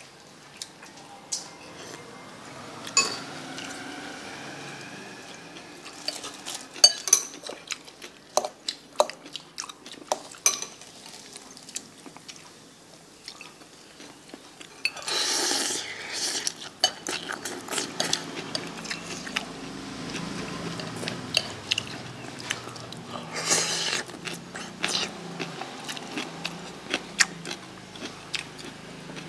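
Metal cutlery clinking and scraping against a ceramic bowl in a string of scattered sharp clicks, with chewing. Two louder bursts of noise, each about a second long, come about halfway through and about three-quarters of the way in.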